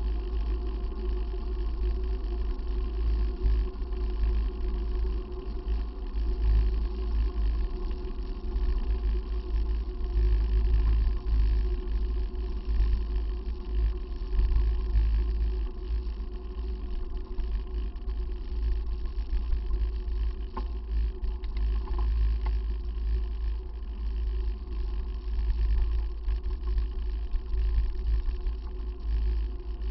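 Wind buffeting the microphone of a bicycle-mounted camera while riding on a road, a low rumble that keeps swelling and easing, over a faint steady hum.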